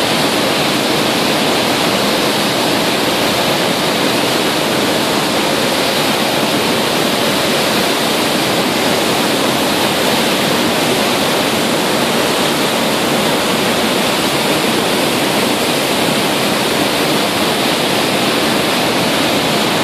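Foaming white-water wake of the nuclear-powered aircraft carrier USS Nimitz, churned up behind the stern and rushing in a steady, loud, unbroken wash.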